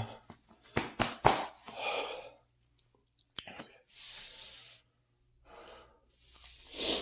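A heavily full man breathing hard in and out, with long hissing exhales. A few short sharp clicks come about a second in.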